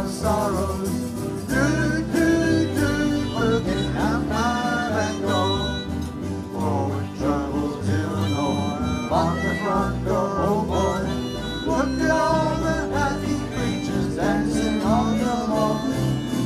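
Amateur acoustic band of guitars, banjo and upright bass playing an upbeat country-rock tune live, with a lead melody that bends in pitch over the strumming.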